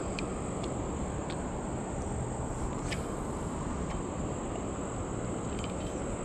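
Insects chirring steadily at one high pitch over a low, even background noise, with a few faint ticks.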